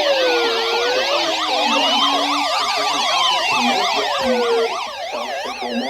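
Several electronic sirens sounding at once: slow wails rising and falling, with fast yelping sirens layered over them. The wails die away near the end while the yelps continue.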